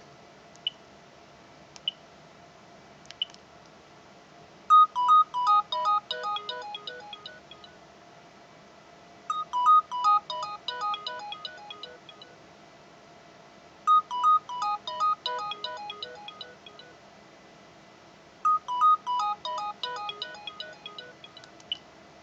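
Cordless DECT phone handset ringing with a melodic electronic ringtone: four rings about four and a half seconds apart, each a quick run of notes stepping down in pitch. In the first few seconds, before the ringing starts, there are three short keypad beeps.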